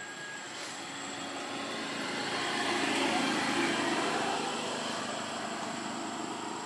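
Engine noise from something passing in the distance, swelling to a peak about three seconds in and then slowly fading.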